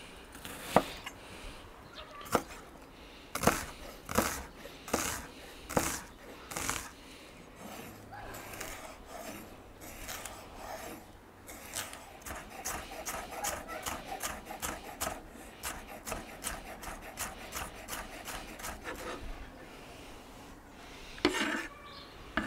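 Kitchen knife dicing bell pepper and onion on a wooden cutting board: a few separate knocks of the blade on the board at first, then a fast, even run of quick chops.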